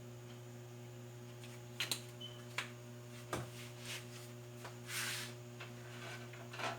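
A steady low electrical hum, with a few light clicks and knocks of a pan and kitchen things being handled as oil is put in the pan, and a brief soft hiss about five seconds in.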